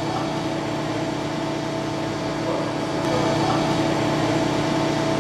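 Steady running hum of an Okuma MCR-B II double-column CNC machining center, with a few steady tones over a noisy drone. It gets a little louder about three seconds in.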